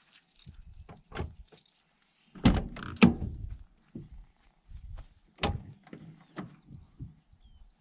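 Rear door of a Peugeot Boxer van being unlatched and opened: two loud metal clunks from the handle and latch about two and a half and three seconds in, followed by lighter knocks and rattles.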